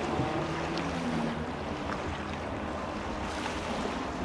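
Jet ski engine running at speed as the craft races across open water, its pitch dropping slightly about a second in.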